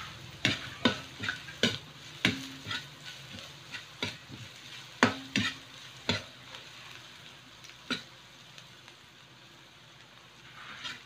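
Metal ladle scraping and knocking against a large aluminium wok as chopped ginger, onion and garlic are stir-fried, over a faint sizzle of frying. The strokes come irregularly, some ringing briefly, with a lull near the end.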